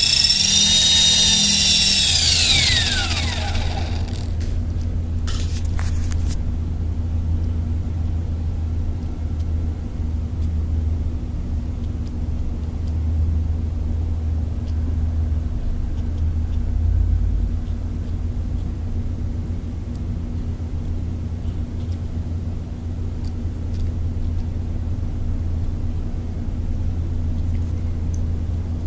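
High, multi-toned whine of a T-Rex 450 Sport RC helicopter's electric motor and main gear, falling steeply in pitch as it spins down and dying out about three or four seconds in; this is the drive whose strange main-gear sound is being traced. A steady low rumble continues after it.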